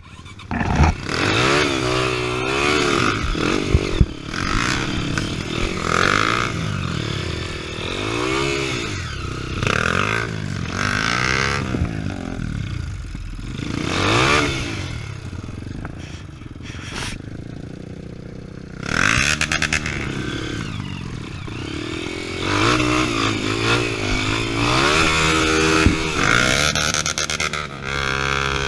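Off-road trail motorcycle engine under way, revving up and dropping back over and over, with a few sharp knocks along the way.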